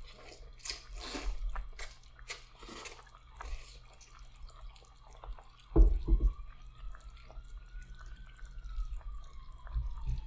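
Noodles slurped from a bowl in several short wet sucking bursts over the first few seconds. A single loud knock comes about six seconds in, over a low steady hum.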